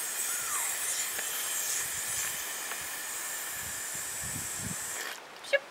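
Air hissing steadily out of a Scrubba wash bag as the rolled, water-filled bag of laundry is pressed down to let the air out. The hiss cuts off suddenly about five seconds in.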